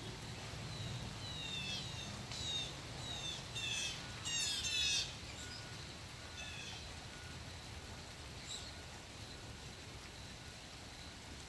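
Blue jay calling: a run of short, harsh, falling calls that come faster and louder for about four seconds, then a few fainter calls after a pause.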